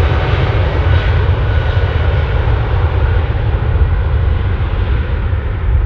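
Boeing 777 jet engines on departure: a loud, steady deep rumble with a broad hiss whose top end slowly dulls as the airliner moves away.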